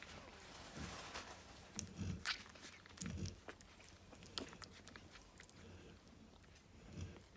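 Cane corso snoring, low rumbling breaths about a second, two and three seconds in, then a pause and another near the end. Small clicks and smacks are scattered throughout.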